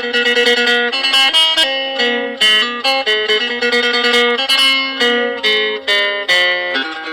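Isan phin (plucked lute) playing a lively melody: quick plucked notes over a low drone note held almost throughout.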